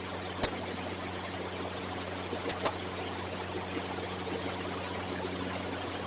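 Steady low hum under a haze of room noise, with a sharp click about half a second in and a couple of faint taps near the middle.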